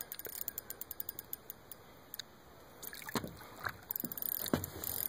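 A large brown trout splashing at the water's surface several times, starting about three seconds in, as it fights on the line. Light, rapid clicking from the fishing reel runs under it.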